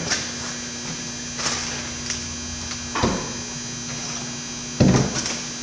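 Steady electrical mains hum, with a few short knocks and clunks from transmission parts being handled on the bench, the loudest about five seconds in.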